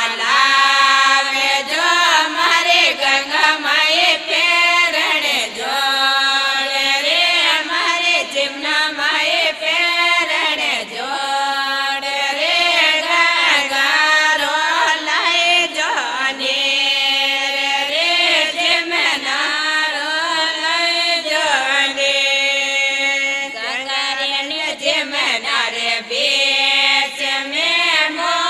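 A Marwari women's group singing a devotional folk song to Ganga Maiya, in a continuous chant-like melody.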